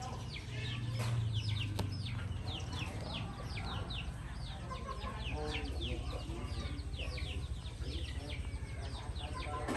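Many chicks peeping at once: dense, overlapping short falling chirps that run on without a break, over a low steady hum.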